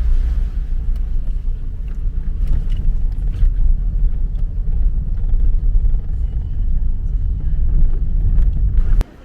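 Wind buffeting the microphone: a loud, gusting low rumble that stops abruptly about nine seconds in.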